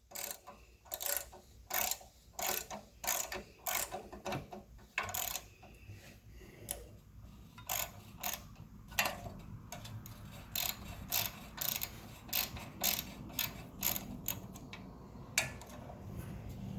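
Hand ratchet wrench clicking in a run of short strokes, about two clicks a second, as it works a fastener on a Honda trash water pump.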